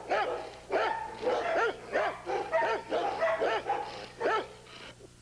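Bouvier des Flandres dogs barking, a quick run of overlapping barks about three a second that dies away near the end.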